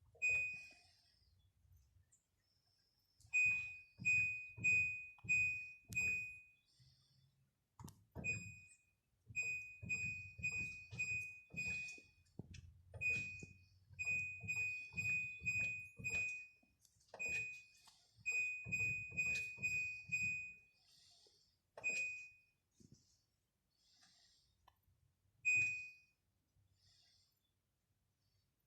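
Washing machine control-panel buttons pressed over and over, each press giving a soft thunk and a short high electronic beep. The beeps come in runs of several, roughly one or two a second, with short pauses between the runs.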